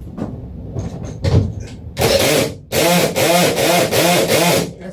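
Power driver tightening the mounting bolts of a rooftop air conditioner. It runs in one burst about two seconds in, then in about five quick pulses that rise and fall in pitch as the bolt comes up tight.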